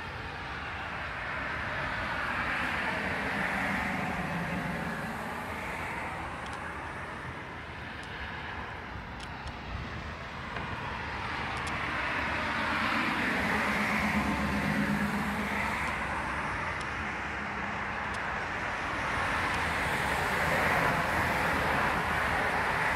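Road traffic: cars passing one after another, their tyre and engine noise swelling and fading about three times.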